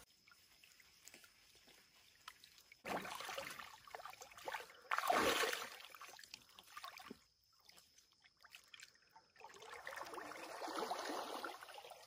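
Water splashing and sloshing around a person bathing chest-deep, starting about three seconds in, loudest around five seconds, pausing briefly, then sloshing again near the end.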